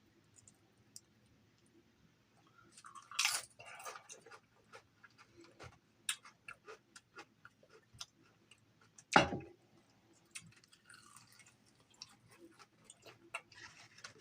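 Close-up chewing and crunching of food, with scattered small clicks and a louder crunch about three seconds in. A single loud thump about nine seconds in.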